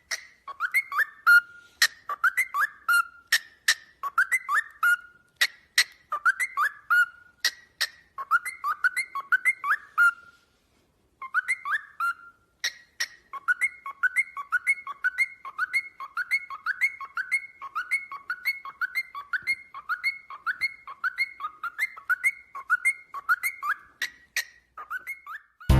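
Parrot whistling the same short, quick phrase over and over, with sharp clicks in between. It breaks off for about a second partway through, then goes on faster over a held high note.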